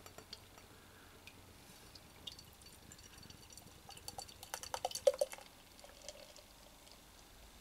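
Hazy IPA poured from an aluminium can into a tilted glass: a faint trickle with scattered small ticks, then a cluster of short splashing and gurgling sounds about four to five seconds in as the glass fills and the head builds.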